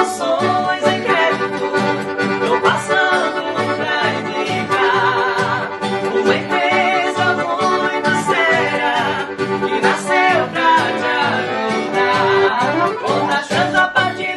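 Accordion music over a steady, regular bass beat, with singing.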